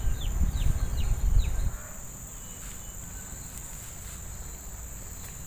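Steady high-pitched chorus of insects. For the first second and a half a few short falling chirps sound about every half second over a low rumble, which cuts off suddenly about two seconds in.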